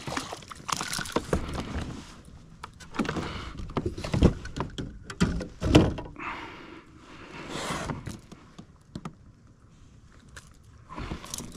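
Irregular knocks, thuds and rattles of a small bass being brought in and handled aboard a fishing kayak, the two loudest about four and six seconds in.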